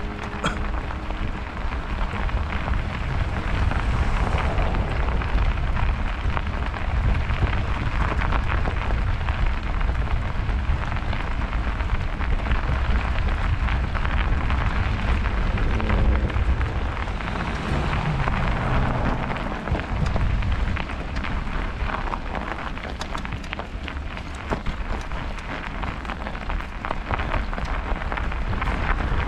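Riding a bicycle through snow: a steady rumble of wind on the microphone under a continuous crackling hiss of tyres on a snowy road, with many small clicks throughout.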